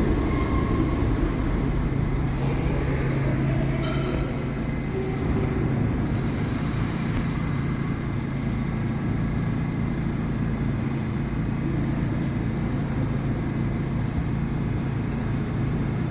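New York City subway train running, a steady low rumble and hum. Faint, short wheel squeals come and go in the first half.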